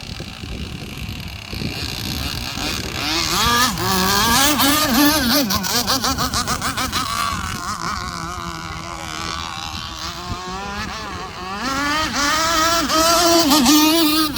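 Gasoline radio-controlled boat engine running at high revs, its pitch wavering quickly up and down. It grows loud about three seconds in, eases off in the middle, and comes loud again near the end.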